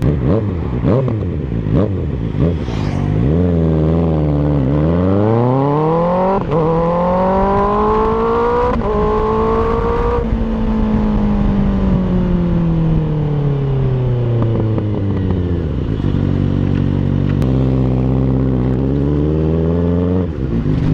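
Kawasaki ZX-6R inline-four through an M4 GP19 exhaust with its dB-killer insert, accelerating with rising pitch and a couple of brief breaks like upshifts until about halfway, then falling steadily in pitch as it slows, and holding steady near the end.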